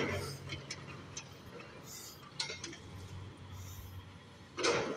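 Demolition excavators working a rubble pile: a low steady engine hum with scattered light clinks and ticks of debris, and a louder clatter near the end.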